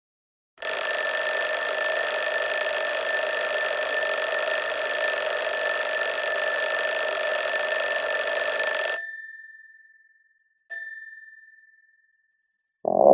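An electric bell ringing continuously for about eight seconds, then stopping and fading out, followed by one short ring that dies away.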